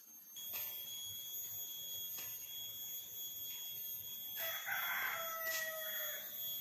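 A rooster crowing once, one long call of nearly two seconds starting past the middle, over a steady high-pitched ringing background.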